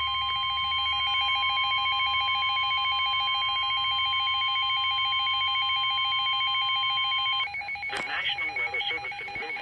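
NOAA Weather Radio warning alarm tone: a loud, steady single-pitched tone that signals a warning is about to be read. A lower, rapidly pulsing beep sounds over it. The steady tone cuts off about seven and a half seconds in, and the pulsing beep carries on under a voice that starts near the end.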